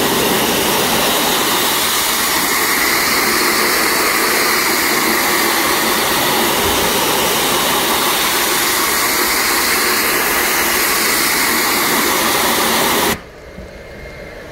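Pressure washer jet spraying water into a finned metal coil: a loud, steady hiss of spray that cuts off suddenly near the end, leaving a much quieter steady background noise.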